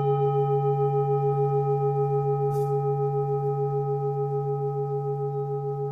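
Singing bowl ringing steadily, several held tones at once, with a wavering beat about four times a second.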